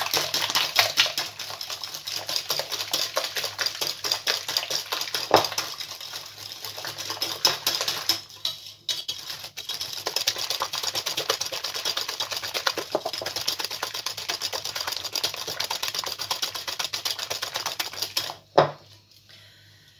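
Hand wire whisk beating eggs, sugar and orange zest in a glass bowl: a rapid, steady clicking of the wires against the glass. The beating breaks off briefly about halfway, and near the end it stops with a single knock.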